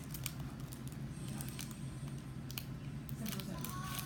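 A person chewing Rice Krispies with the mouth close to the microphone: irregular small crunches and clicks over a steady low hum.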